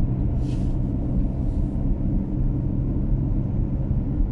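Steady road and engine rumble of a car heard inside the cabin while driving on a highway, with two brief hisses in the first two seconds.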